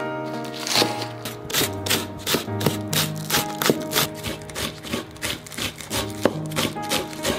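Kitchen knife chopping green onions on a wooden cutting board in quick, even strokes, about four a second, over background music with sustained notes.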